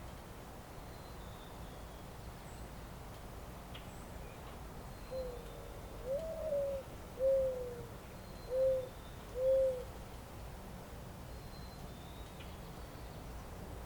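A bird calling five low notes in a row, about a second apart, the first faint and the second longer with a rise in pitch. Faint high chirps from small birds and a steady low background rumble lie underneath.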